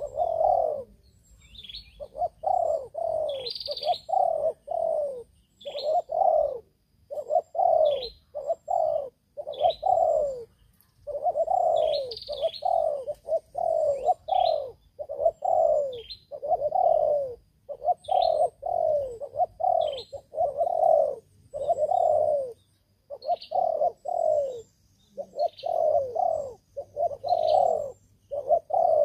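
Spotted doves cooing in a near-continuous run of short, falling coos, grouped in phrases of three to five notes with brief pauses. Small birds chirp faintly in the background.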